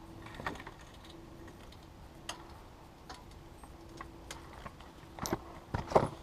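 Light scattered clicks and knocks of hand work on a car wheel's spacer and bolt hardware, with a few louder knocks near the end.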